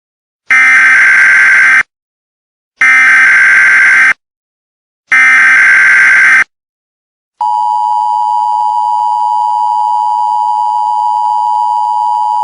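Emergency Alert System tones: three short bursts of SAME header data, each just over a second long with about a second's gap between them. About seven seconds in, the steady two-tone EAS attention signal begins.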